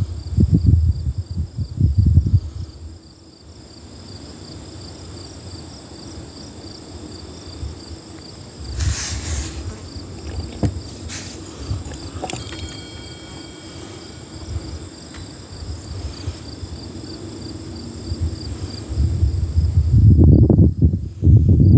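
Insects chirring steadily in a fast, even pulse, high-pitched throughout. Low rumbling noise covers the first few seconds and returns near the end.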